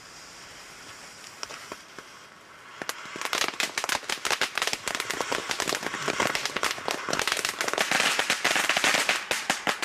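A firework spraying sparks. After about three seconds of faint hiss it breaks into dense, rapid crackling and fizzing that carries on to the end.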